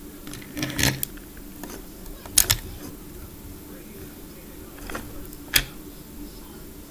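Plastic toy train engine and tender being handled on wooden track: a few short clicks and knocks as the pieces are lifted, tilted and set back down on the rails, including a quick double knock.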